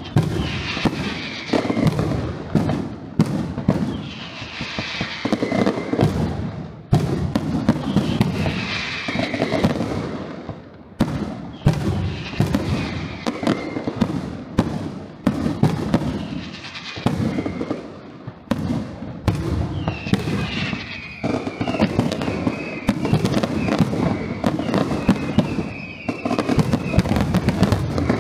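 Fireworks display: aerial shells bursting in a near-continuous barrage, several bangs a second over a deep rumble, with high whistling tones rising and falling at times and brief lulls about ten and eighteen seconds in.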